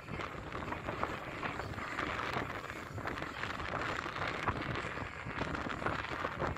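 Wind buffeting the camera microphone, a steady crackling rumble with no clear engine or rotor tone.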